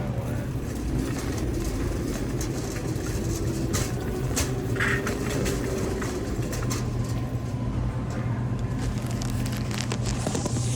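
Steady low hum and rumble of a grocery store's background noise, with scattered clicks and light rattles.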